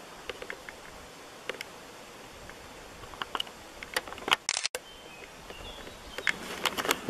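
Irregular light clicks and crunches of footsteps on a path outdoors, with a short loud rustle about four and a half seconds in that cuts off abruptly.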